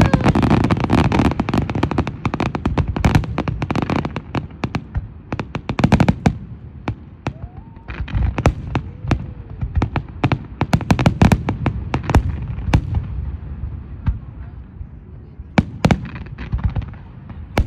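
Fireworks going off: an irregular stream of sharp bangs and crackling pops, thick in the first few seconds and thinning out later, with single loud reports scattered through.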